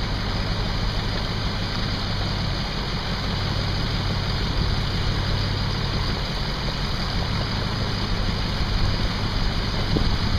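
Motor vehicle engine running steadily with a low hum, under a constant rushing noise.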